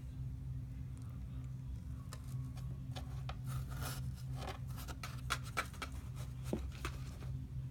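Five-week-old kittens playing, their claws scratching and tapping in scattered little clicks and scrabbles, busiest in the middle, over a steady low room hum.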